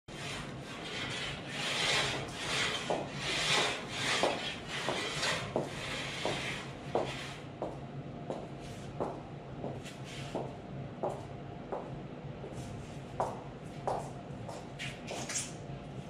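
Hand saw cutting wood: rhythmic rasping strokes about twice a second, heavier in the first half and lighter and sharper after.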